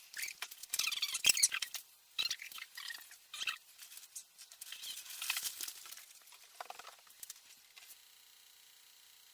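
Irregular rustling and scratching with sharp clicks, like objects being handled, stopping about a second before the end and leaving only a faint steady hiss.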